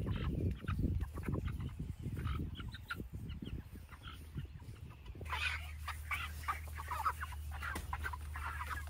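A flock of Cornish Cross meat chickens clucking and chirping while being handled, the calls growing busier and louder from about five seconds in.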